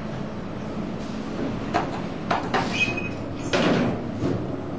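Otis GeN2-Regen elevator car's sliding doors closing: a few clicks and a brief high beep, then a short rush of noise, the loudest sound, and a knock as the doors shut.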